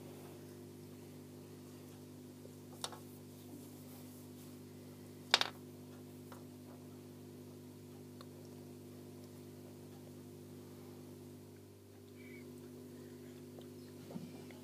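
Steady low electrical hum made of several even tones, with a sharp click about three seconds in and a louder click about five and a half seconds in.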